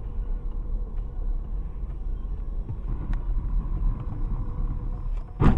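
A car driving in city traffic, heard from inside its cabin: a steady low engine and road rumble. A sudden loud knock comes near the end.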